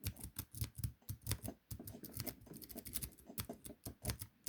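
Worm rake being scrubbed back and forth over the pins of a 40mm laminated padlock under tension: a rapid, irregular run of small metallic clicks and rattles.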